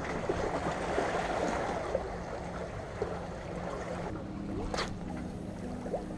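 Small waves lapping and sloshing against the rocks of a breakwater, a dense crackling wash that eases a little after about four seconds, over a low steady hum.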